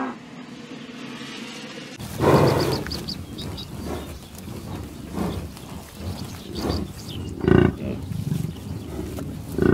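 Buffalo giving deep grunting calls: a loud one about two seconds in, another at about seven and a half seconds and one at the very end, with softer grunts between them.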